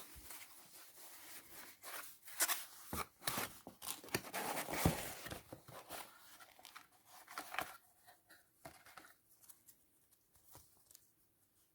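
A cardboard product box being opened and its paper and packaging handled: irregular rustling, tearing and sharp clicks and taps, thinning out over the last few seconds.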